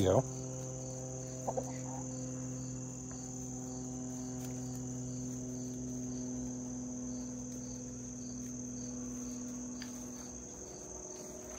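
Propeller plane droning overhead: a steady, even hum that fades away near the end, over a constant chirring of crickets.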